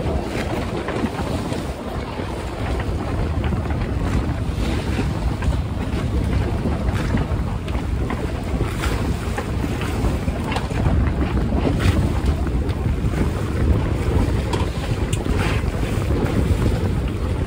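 Wind buffeting the microphone over the steady rush of water along a sailboat's hull, with scattered short splashes.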